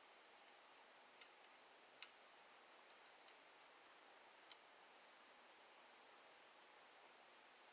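Faint, scattered clicks of a tool on the steering wheel hub adapter bolts as they are tightened down, the loudest about two seconds in. A brief high squeak follows a little before the end.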